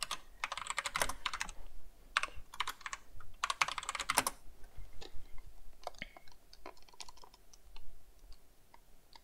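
Typing on a computer keyboard: bursts of quick keystrokes in the first half, thinning to scattered single key presses later on.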